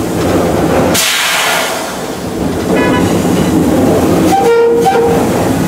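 EMD GP38 locomotive's 16-cylinder two-stroke diesel running steadily, heard from the cab. About a second in there is a sharp burst of air hissing that fades away over about a second, typical of the air brakes being released. Near the end comes a brief horn sounding of well under a second.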